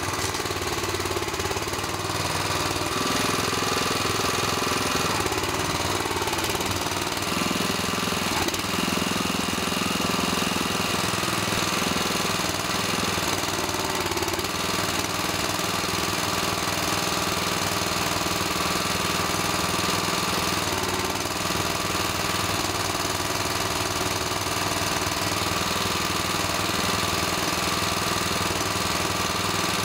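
A small single-cylinder petrol engine on an ATV's front rack runs steadily, driving the hydraulic pump of a Kranman forestry crane. Its note shifts a few times as the crane lifts and swings a load of brush.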